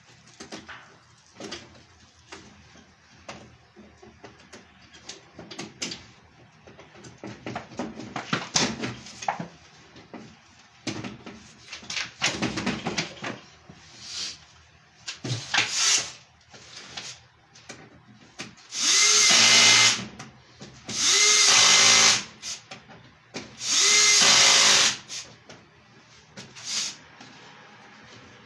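Cordless drill/driver running in three short bursts of about a second and a half each, the loudest sounds here. Before them come scattered small clicks and rustles of hands working on the meter wiring.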